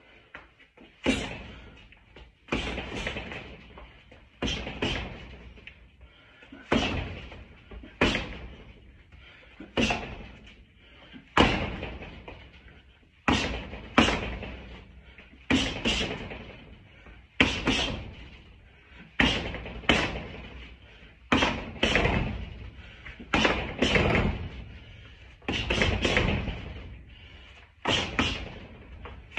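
Boxing gloves striking the padded arms of a Body Action System punching device in quick combinations of one to three hard slaps, about every one and a half to two seconds, each fading out over about a second.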